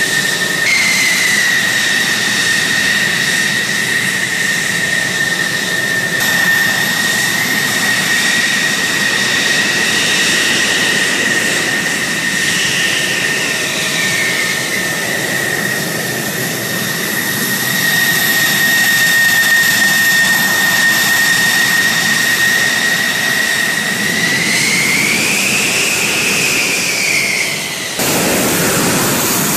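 F-16 Fighting Falcon's turbofan jet engine running as the fighter taxis: a loud, steady high whine over a broad rush of exhaust. Near the end the whine swings up in pitch and back down, as the engine spools up briefly.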